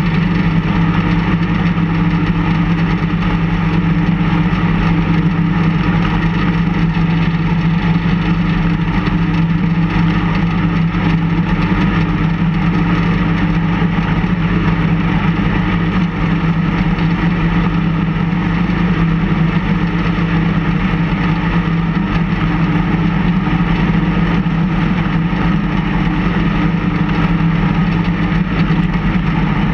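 Engine of a small snowplow vehicle running steadily at an even speed, close to the microphone, as it pushes snow with its front blade.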